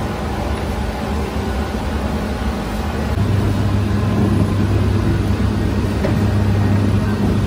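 Dough divider machine running with a steady mechanical hum; a deeper, louder hum comes in about three seconds in.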